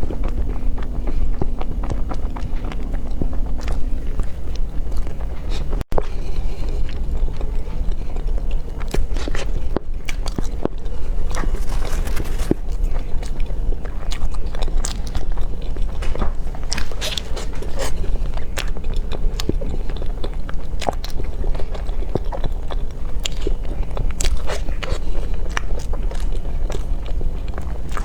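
Close-miked eating: a person biting and chewing with many small wet clicks and smacks, over a steady low hum. The sound drops out for an instant about six seconds in.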